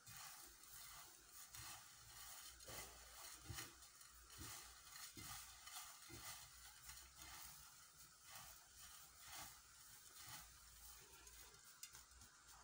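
Near silence, with faint, irregular soft rustling from hands rubbing vegetable oil through dry vermicelli strands to separate them so they soak up the oil.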